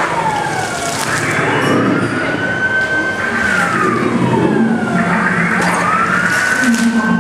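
Slow wailing siren effect played through the scene's speakers. It rises, holds, then falls: a full wail about a second in, with the next one rising near the end. Under it runs a dense mix of show noise.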